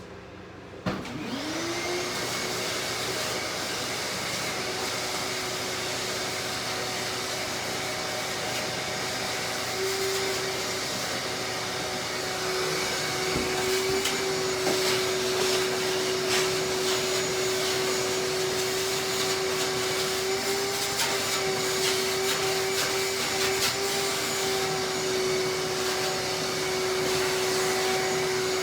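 Vacuum cleaner switched on about a second in, its motor spinning up quickly to a steady whine over a rush of air. It runs steadily, with scattered clicks and rattles in the middle stretch.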